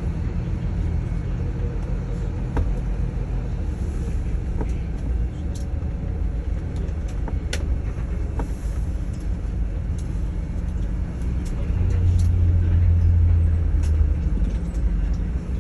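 Inside a moving airport apron bus: steady low engine rumble and road noise, with scattered small rattles and clicks. A louder low drone swells from about twelve seconds in for two seconds.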